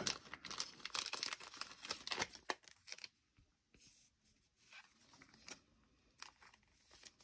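Baseball cards being handled and shuffled on a playmat: a busy run of papery rustles and light taps for about three seconds, then only scattered, softer ones.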